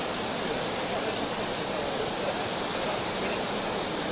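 Fast stream rushing over rocks as white water: a steady, loud noise that does not change.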